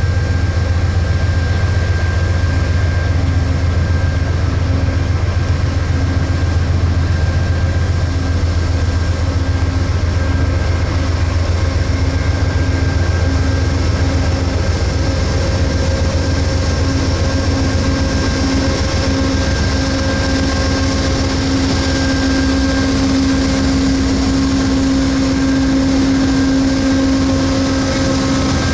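Amtrak Siemens ALC-42 Charger diesel-electric locomotive idling at a stand: a steady low engine hum with a few steady tones over it, one droning tone growing stronger over the last several seconds.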